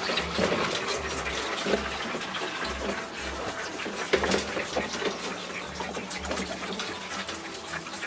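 Milk being poured from a plastic bucket into a multi-teat calf feeder, splashing into the trough, with calves sucking and slobbering at the teats and small knocks against the feeder.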